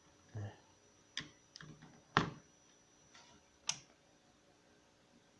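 Small plastic cable connector being handled on a desktop motherboard: a handful of short, sharp clicks and taps, the loudest about two seconds in.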